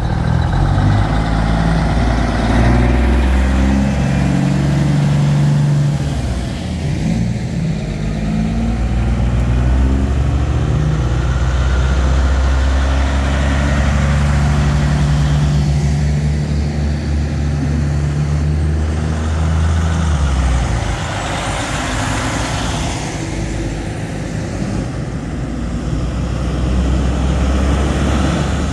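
Semi trucks, Peterbilt and Kenworth tractor units, passing one after another with their diesel engines running loud and deep. The engine pitch shifts up and down as each truck pulls by.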